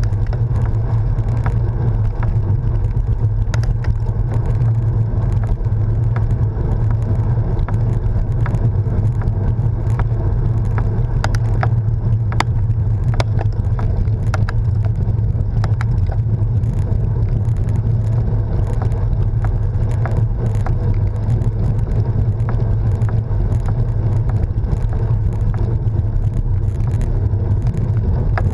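Steady low rumble of wind on the microphone and tyres rolling on tarmac from a camera mounted on a moving road bike, with scattered small clicks and rattles.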